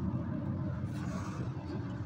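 Steady low background rumble with no distinct knocks or clicks.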